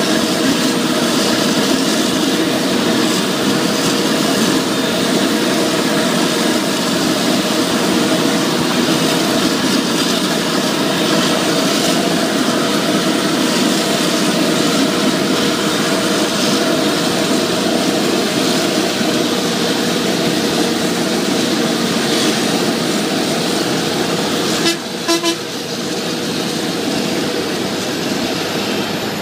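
Claas Jaguar 980 self-propelled forage harvester chopping maize for silage, its engine and chopper running steadily under load. Near the end a horn gives two short toots.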